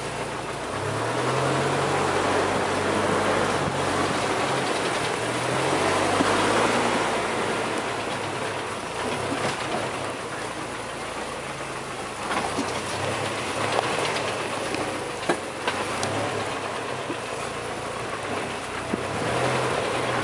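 Off-road 4x4 crawling over a rocky, rutted dirt track, heard from inside the cab: the engine runs low with its pitch shifting, under a constant rattle of the body and suspension. A few sharp knocks, likely from rocks striking the underside, come between about twelve and sixteen seconds in.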